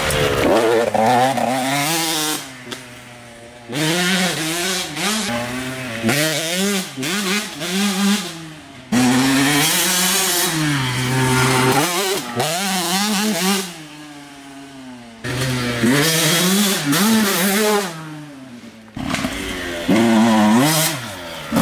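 KTM 85 two-stroke motocross bike being ridden hard, the engine revving up and dropping back again and again as the throttle is opened and shut. Several times it fades briefly, then comes back loud.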